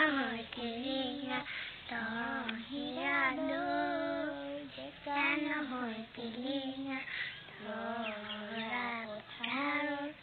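A girl singing a song unaccompanied, in several phrases with short pauses between them.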